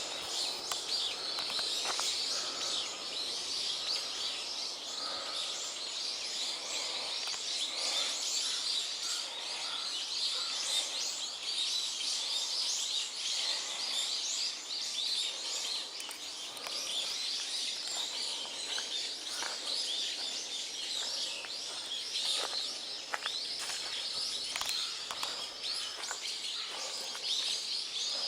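A chorus of many small birds chirping at once, a dense, unbroken chatter of short high notes.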